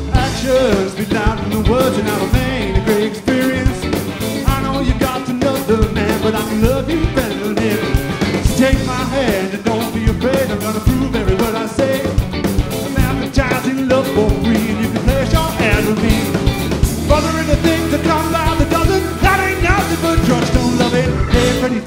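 Rock band playing a song: electric guitars, bass guitar and drum kit with a steady beat, and a man singing.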